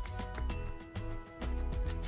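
Background music: held notes over a low, thumping beat.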